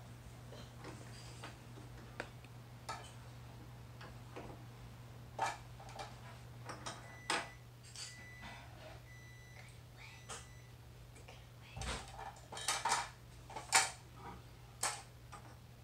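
Scattered light clicks and taps of star-shaped candy lollipops, sticks and a plate being handled on a table, busiest near the end, over a steady low hum.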